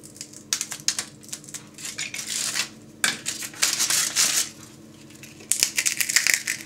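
Crisp pork crackling being broken apart by hand on aluminium foil: crackly snaps and crunches mixed with foil crinkling, in several irregular bursts, busiest near the end.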